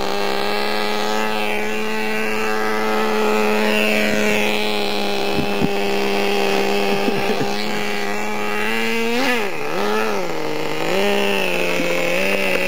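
Small two-stroke nitro engine of a radio-controlled truck running steadily, its pitch dipping and swinging back up a few times about nine seconds in as the throttle is worked. Fainter whines rise and fall above it.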